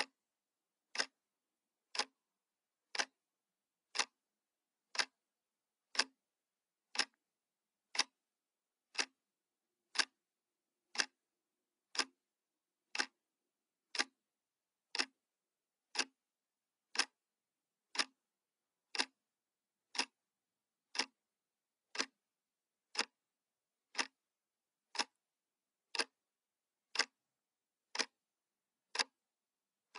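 Clock ticking sound effect: a single sharp tick once every second, evenly paced, for a countdown timer.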